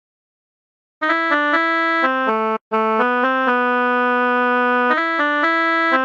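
A ringtone melody in an Arabic style starts about a second in, after a second of silence. It plays a run of stepped notes, with a short break partway and one long held note.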